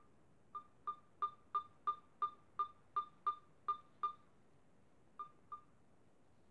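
Onda tablet's volume-change beep, a short high beep repeated about three times a second as the volume button is pressed, then twice more near the end. The tablet sounds its volume tone although its screen is lit and showing nothing, a sign that it is powered and partly running but fails to boot to a display.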